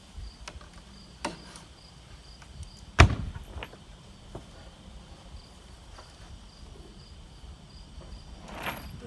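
Scattered knocks and clicks, the loudest a single thump about three seconds in, and a brushing scrape near the end, over faint steady cricket chirping.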